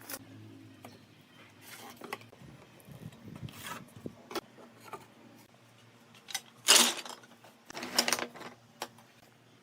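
Wood and small hardware being handled at a workbench: a series of short clicks, taps and brief scrapes, loudest just before 7 seconds and around 8 seconds in.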